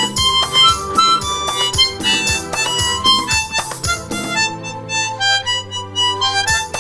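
Harmonica playing a lively tune into a microphone, with quick rhythmic notes. About four seconds in, the quick notes give way to held chords for about two seconds, then start again.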